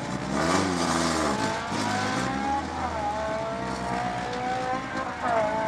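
Rally car engine heard from inside the cabin, revved for the launch from the start line with a burst of tyre noise as it pulls away, then accelerating hard through the gears, its pitch rising and dropping at a gear change about three seconds in and again near the end.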